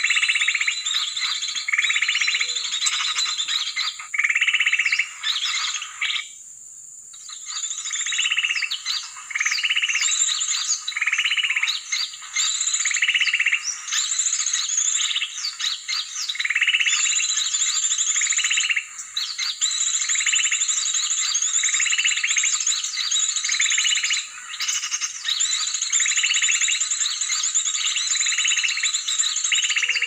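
A dense chorus of high-pitched chirping calls, pulsing about once a second. It breaks off for about a second some six seconds in, then resumes.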